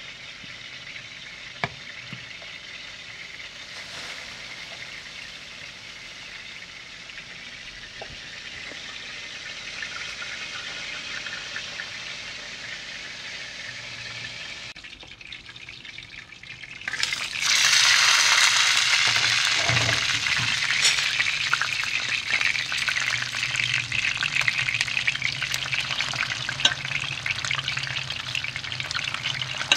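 Whole mullet frying in a pan, a steady sizzle, muffled under a glass lid at first. A little past halfway the sizzle turns suddenly much louder and brighter and stays so.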